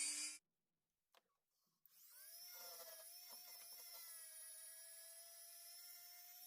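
Dremel rotary tool cuts out just after the start, then after a short gap spins up again with a rising whine that settles into a steady, faint high whine, running lightly.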